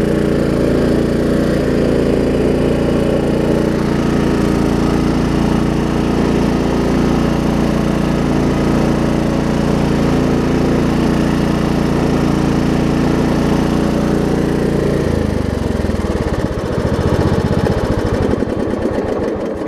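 Craftsman LT1750 riding mower engine running steadily; about fifteen seconds in its steady note breaks up and it runs down as it is shut off.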